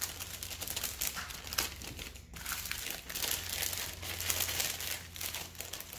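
Clear plastic packaging crinkling and rustling in irregular bursts as small items are handled and bagged.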